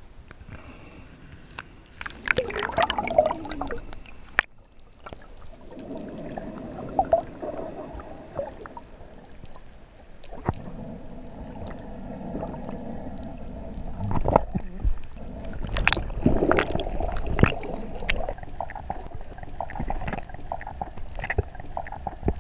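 Underwater sound on a freediver's action camera: muffled rushing and gurgling water, with a steady hum through most of it and scattered sharp clicks and knocks.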